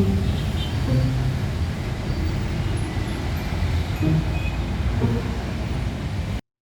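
Steady low rumble of a heavy road vehicle's engine and road noise. It cuts off abruptly near the end.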